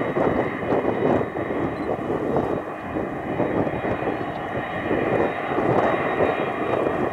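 McDonnell Douglas MD-11F freighter's jet engines running: a steady rumble with a thin, high whine held on a few fixed tones.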